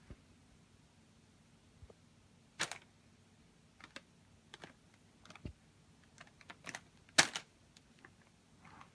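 A baby's hands patting and scratching a gift-wrapped present: scattered short taps and crinkles of wrapping paper, the loudest a little after seven seconds in.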